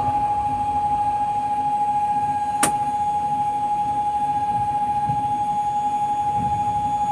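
Steady high tone held without a break over a faint low rumble, with one sharp click about two and a half seconds in.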